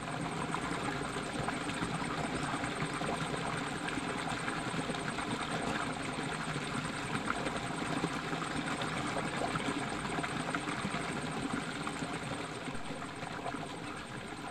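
Steady rush of a small stream spilling over rocks.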